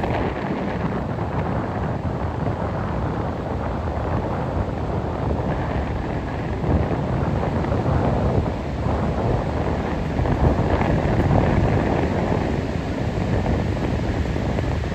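Stormy sea: surf breaking and rolling in a steady loud rush, with a couple of louder swells as waves come in, and strong wind buffeting the microphone with a low rumble.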